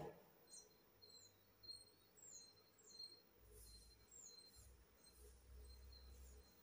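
Near silence with faint bird chirps in the background: short falling notes repeating every half second or so, over a faint low hum.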